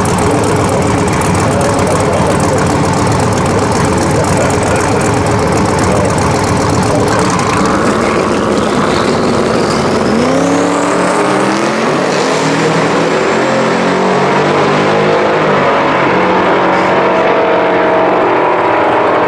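Twin-turbo LS V8 engine of a Mk1 VW Passat drag car running loud at the start line. About ten seconds in it launches, and the engine note rises in repeated steps through the gears as the car pulls away down the strip.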